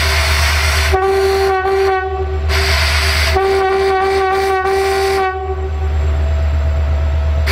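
Horn of a CFR Class 64 diesel-electric locomotive sounding in two stretches, each broken into a quick string of short toots, over the steady low rumble of its engine.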